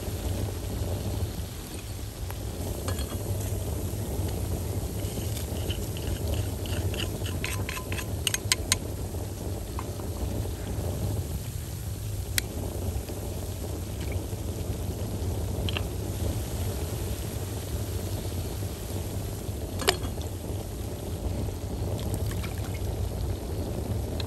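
Cooking noises: a metal utensil clinking against a vessel in a quick run of light taps about a quarter of the way in, then a couple of single sharp clinks, over a steady low rumble.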